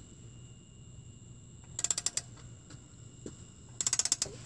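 Hand ratchet wrench clicking in two quick runs about two seconds apart as the water pump pulley bolts are turned.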